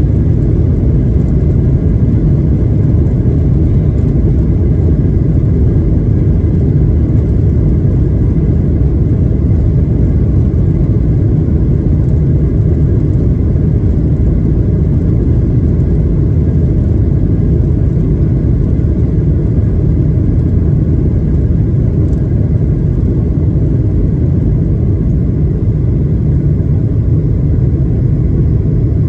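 Cabin noise of a Boeing 737-800 on its takeoff roll: a steady, loud low rumble from the CFM56 engines at takeoff power and the wheels rolling down the runway.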